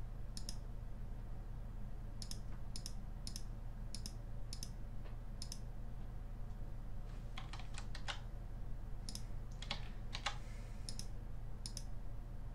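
Computer mouse clicking: a string of about fifteen separate sharp clicks, some in quick pairs and some a second or so apart, each one placing a dot with a pen tool. A steady low electrical hum runs underneath.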